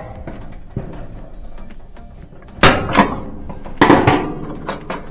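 Sharp metallic clicks and clanks, four in the second half, as the spring retaining clips holding a Maytag dryer's drive motor in its cradle are pried off with a screwdriver.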